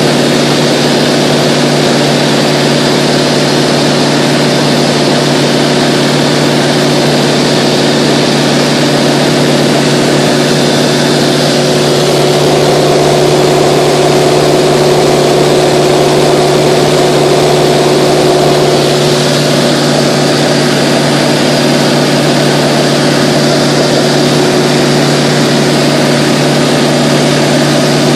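Mooney 201's four-cylinder Lycoming engine and propeller droning steadily in level cruise at about 55% power, heard from inside the cabin over a steady hiss.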